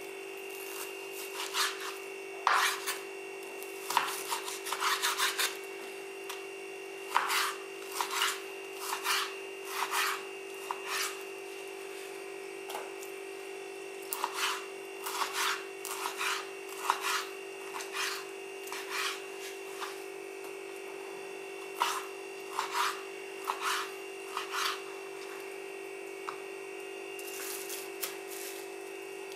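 Knife slicing raw meat on a wooden cutting board: a run of short cutting strokes, roughly one a second, with the blade scraping and knocking on the board, over a steady background hum.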